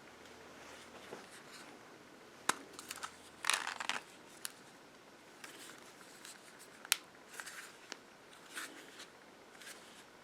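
Close hand-handling noises: scattered sharp clicks and taps, with a brief papery rustle about three and a half seconds in.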